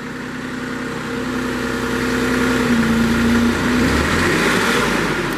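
Turbocharged Kohler engine of a Princeton PB55.3 piggyback forklift running under hydraulic load as the mast is raised and lowered, getting louder over the first couple of seconds and then holding steady.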